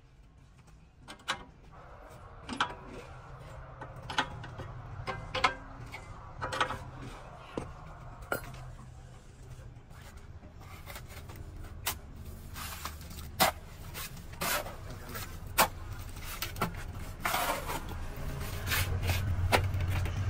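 Irregular sharp knocks and scraping over a low, steady machine hum, typical of work in a concrete pipe factory; the knocks come more often in the second half and the hum grows louder near the end.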